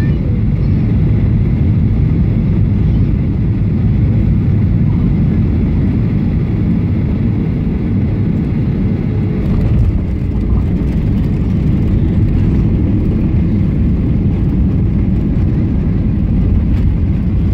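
Steady, loud low rumble inside the cabin of a Boeing 737-800, from its engines and airflow, with light rattles in the second half.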